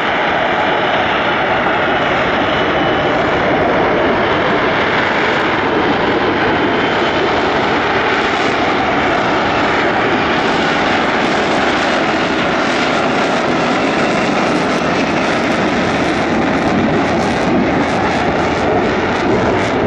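Lockheed Martin F-35B in hovering, jet-borne flight, its Pratt & Whitney F135 engine and shaft-driven lift fan running: a loud, steady jet noise with short crackles growing toward the end.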